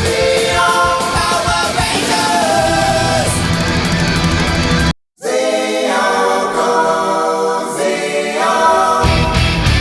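Background rock song with singing and guitar, briefly cutting out for a moment about halfway through.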